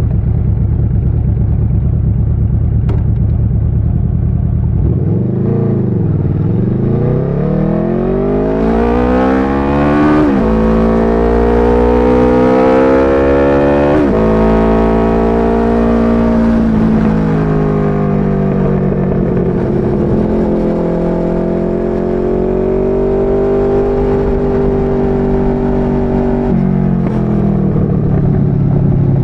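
Motorcycle engine idling, blipped once, then pulling away and accelerating through the gears, with its pitch climbing and dropping at upshifts about ten and fourteen seconds in. After that it runs at a steadier cruising note, easing off near the end.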